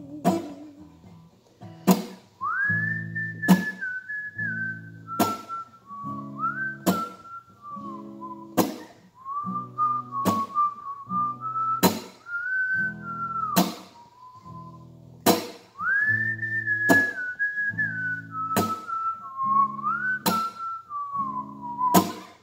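A person whistling a melody over a strummed acoustic guitar. The whistled phrase comes in with an upward slide about two seconds in, steps down in pitch, and is repeated from about halfway. The guitar is strummed in a steady rhythm underneath.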